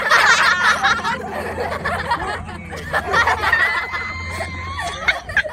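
Several people's voices, shouting and laughing, loudest in the first second, over a steady low hum.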